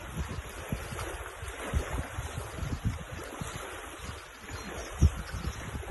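Wind buffeting the microphone in uneven low gusts over a steady wash of choppy lake water, with one stronger buffet about five seconds in.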